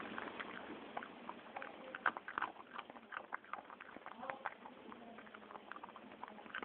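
A dog chewing small pieces of dry food: an irregular run of short crunches and clicks.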